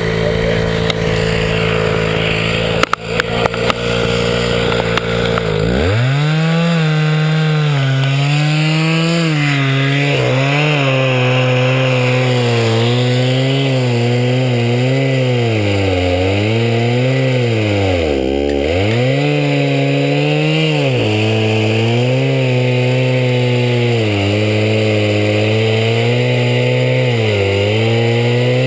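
Small gasoline engine of a homemade sawmill running hard while cutting thick slabs from a blue spruce log. Its pitch is steady at first, changes about six seconds in, then rises and falls under load, with a deep dip about 18 seconds in.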